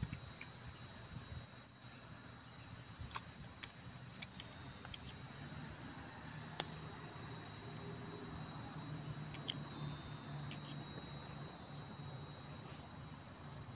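Insects trilling steadily at one high, even pitch, with a faint low hum underneath that grows a little stronger about halfway through.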